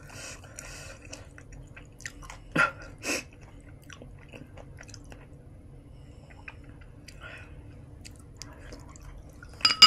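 Close-miked chewing and wet mouth sounds, with two sharp smacks about two and a half and three seconds in and another loud one near the end.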